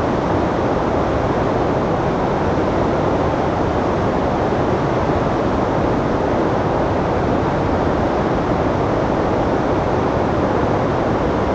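Flood-swollen river pouring through rocky rapids: a loud, steady rush of whitewater.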